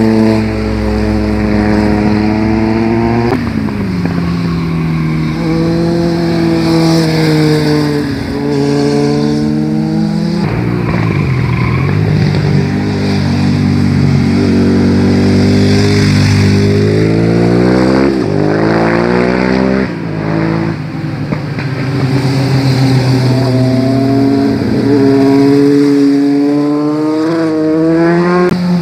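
Several motorcycles ride past one after another on a winding mountain road. Each engine note climbs as the rider accelerates and then drops away, sometimes breaking off sharply as the bike shifts or goes by.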